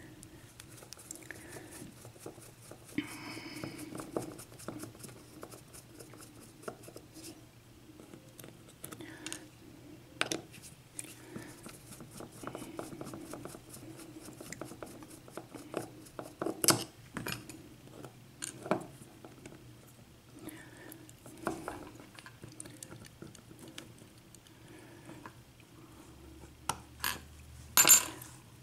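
Light metal clicking, tapping and clinking as a Russwin six-pin cylinder lock is worked on by hand with small tools to take it apart, with scattered sharper clacks, the loudest near the end.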